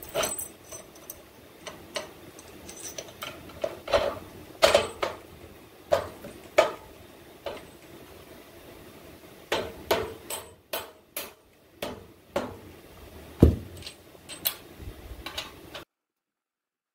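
Irregular sharp metal knocks and clinks as a steel bolt and its washers are worked through a track-bar clevis on a rear axle bracket, one knock every second or so, cutting off abruptly near the end.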